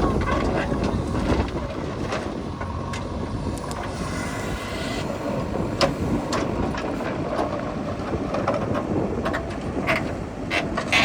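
Diesel engines of heavy machinery running steadily, with a few scattered metallic knocks.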